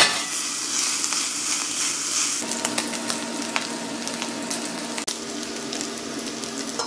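Diced cold-smoked bacon ends sizzling as they fry in a hot pan, with scattered small pops. From about two and a half seconds in, a faint steady hum runs underneath.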